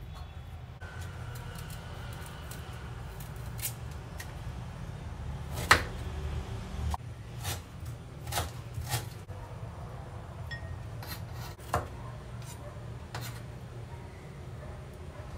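Kitchen knife cutting on a wooden chopping board: a handful of sharp knocks, irregular and about a second apart, the loudest about six seconds in. A steady low hum runs underneath.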